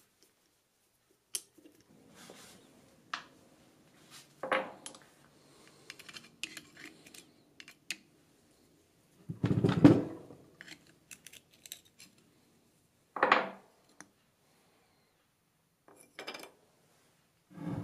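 Small metal clicks and clinks of a screwdriver backing out the screws of a mini mill's bearing cover plate, with the screws and the metal plate set down on a workbench. The loudest is a single knock a little after the halfway point, with a few more clattery knocks later on.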